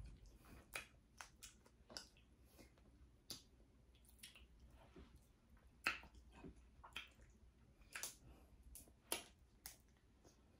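Snow crab being eaten: quiet, irregular sharp clicks and cracks of the shell being broken and picked apart, with soft chewing between them. The loudest crack comes about six seconds in.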